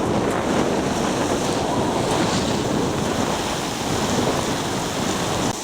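Strong wind buffeting the microphone over rough surf breaking on the beach, a steady loud rush that drops suddenly just before the end.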